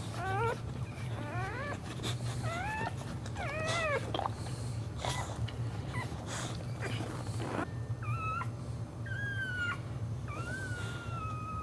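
Boxer dog whining while giving birth standing up: a run of short rising whines at first, then longer, steadier high whines near the end as the puppy in its sac comes out.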